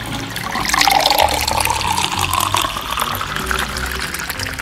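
Water poured from a plastic bottle into a tall, narrow clear plastic tube, splashing steadily, the pitch of the filling rising as the tube fills.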